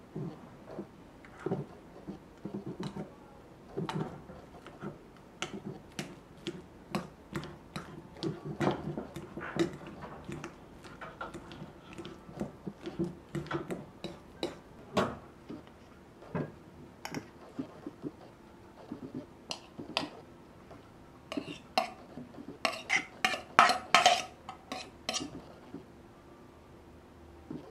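Metal fork mashing avocado in an enamel bowl, the tines clinking and scraping against the bowl in a rapid series of short knocks. The clinks thin out after the middle, and a louder, quicker run of them comes a few seconds before the end.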